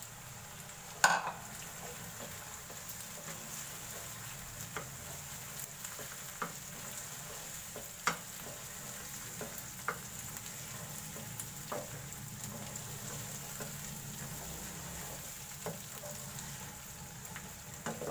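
Raw mutton pieces sizzling in hot oil with fried onions in a non-stick pan, frying so that the meat changes colour. A wooden spatula stirs them, with scattered sharp knocks against the pan; the loudest knock comes about a second in.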